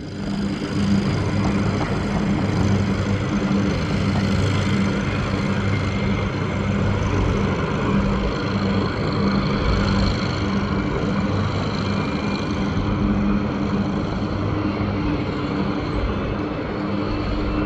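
Steady aircraft engine noise with a constant low hum running under it, holding level without revving up or down.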